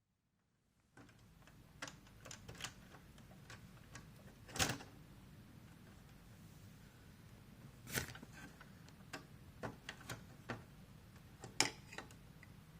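Hard plastic LEGO parts clicking and knocking as the temple set is handled. After about a second of silence come scattered light clicks, with three louder knocks spread through the rest.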